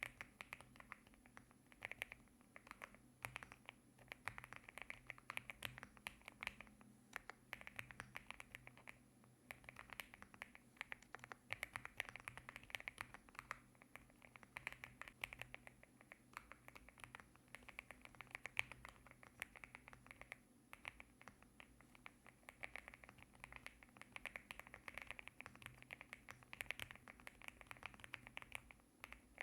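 Typing on a LEOBOG A75 mechanical keyboard with Rambo linear switches: a quiet, dense, irregular stream of key clacks with brief pauses.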